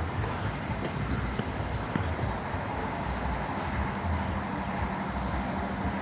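Steady low rumble of vehicle or machinery engines, with a faint steady hum that comes in about halfway through.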